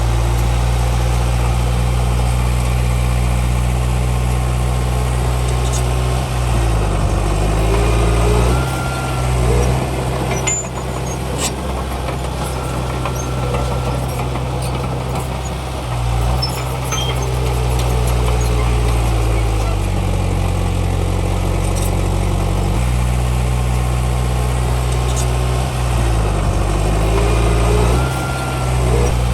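Heavy diesel engine of earthmoving machinery running steadily, its pitch dipping and coming back up twice, with a few short knocks near the middle.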